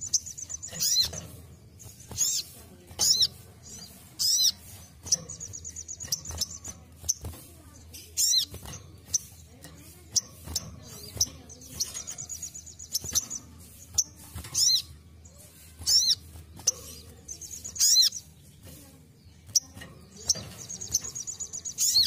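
Sogon (brown-throated sunbird) singing: loud, sharp, high chirps that slur downward, about one a second. These are broken several times by rapid, high buzzy trills lasting a second or two.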